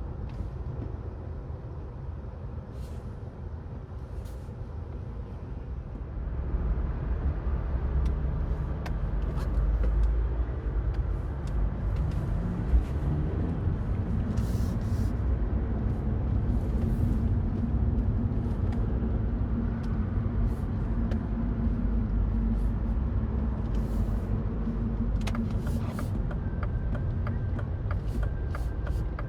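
Mini Cooper Cabrio's engine and tyre noise heard from inside the cabin while driving: a steady low drone that grows louder a few seconds in as the car picks up speed. The engine note rises as it accelerates, then holds steady, with a few light clicks and knocks over it.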